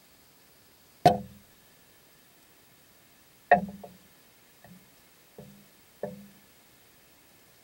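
Five sharp knocks on the underwater camera rig, each with a brief ringing decay. The first two, about two and a half seconds apart, are the loudest, and three weaker ones follow in quick succession.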